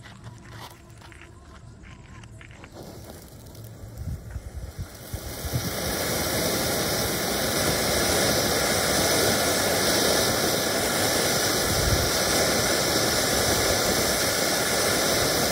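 Red & Green Peacock ground fountain firework: the lit fuse sputters and crackles, a few louder pops come about four seconds in, then the fountain fires a loud, steady hiss of spark jets and shooting stars that keeps on unchanged.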